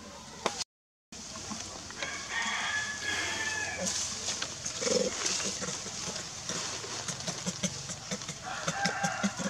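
Baby macaque giving high-pitched squealing cries, a run of them about two seconds in and again near the end.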